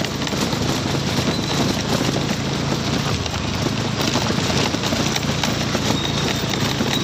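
Small motorcycle's engine running steadily while riding over a rough, potholed dirt road, with continual rattling and knocking from the bike jolting over the bumps.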